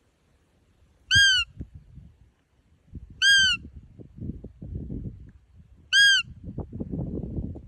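Roe deer call (fiep) sounded three times, each a short squeak that rises and falls in pitch, imitating a doe to draw in a rutting buck. Low rustling or handling noise runs between the later calls.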